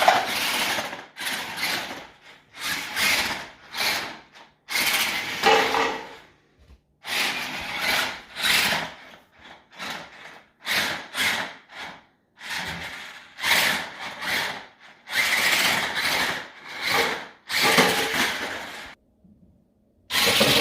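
Megalodon Storm 1:15-scale RC monster truck's electric motor whining in repeated throttle bursts, about a dozen spurts of a second or two each with short silences between.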